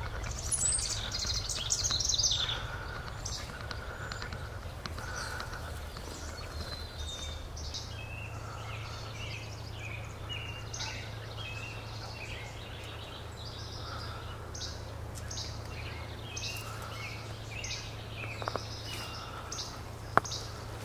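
Small songbirds chirping and calling repeatedly, with a louder flurry of high calls in the first couple of seconds over a steady low background rumble. Two sharp clicks come near the end, the second one louder.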